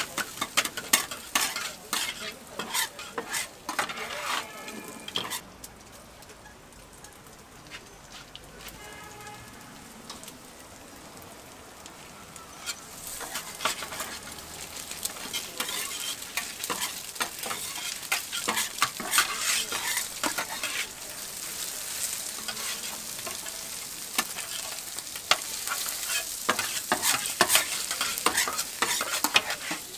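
Two metal spatulas clacking and scraping on a flat-top griddle as egg, meat and shredded cabbage are stir-fried, over a steady sizzle. The strikes come thick and fast at first, thin out for several seconds in the middle, then pick up again.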